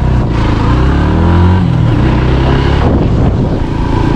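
Motorcycle engine accelerating as the bike pulls away. Its pitch rises, drops about halfway through as at a gear change, then climbs again.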